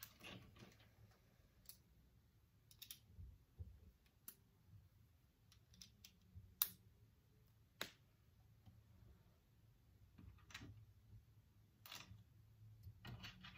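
Small plastic building bricks clicking and rattling as they are picked through and fitted together, in scattered light clicks, with two sharper clicks about six and a half and eight seconds in.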